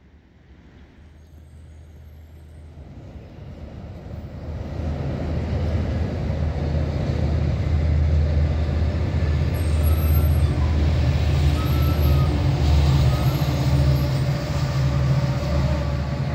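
A large vehicle's engine approaching: a low rumble that grows louder over about eight seconds, then runs steadily loud.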